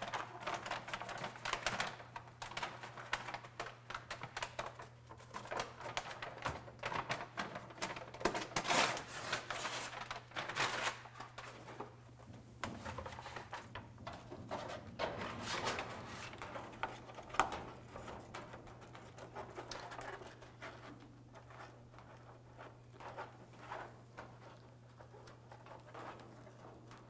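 Crinkling and rustling of a Dynamat butyl sound-deadening sheet and its paper backing as they are peeled and handled, dense and irregular at first and thinning out toward the end, over a steady low hum.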